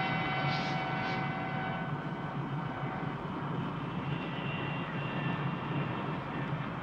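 Steady running noise of a car driving, heard from inside the car, with a few held higher tones fading out about three seconds in.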